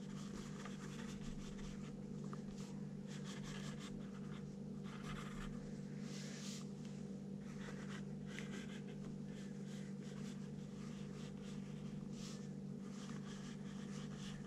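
Wooden pencil scratching on paper in quick, irregular strokes, over a steady low hum.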